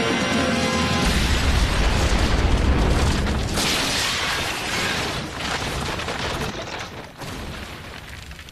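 Cartoon explosion sound effect: a deep boom about a second in, rumbling for a few seconds, with a hissing blast in the middle before it dies away. Music plays under it.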